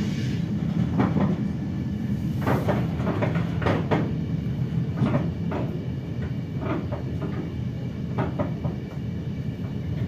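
Ride noise inside a moving RA2 railbus car: a steady low rumble with irregular sharp knocks and clicks, one or two a second.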